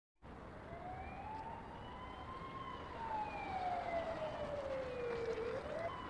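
Police car siren in a slow wail: one long rise and fall in pitch, with another downward sweep starting near the end, over faint street noise.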